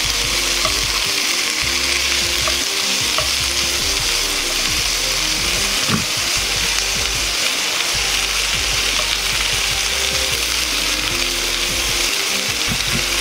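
Cabbage and other vegetables sizzling steadily in lard in a frying pan over low heat as they are stirred with wooden chopsticks, with a few light clicks of the chopsticks against the pan.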